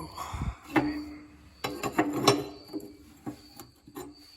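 Wrench breaking loose the oil drain plug on a tractor's oil pan: a scattered series of metal clanks and knocks with some scraping.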